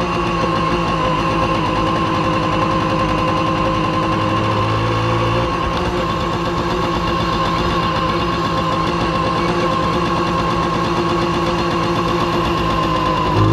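Simson S51 B moped's 50 cc single-cylinder two-stroke engine running at a steady speed, its note even and unchanging.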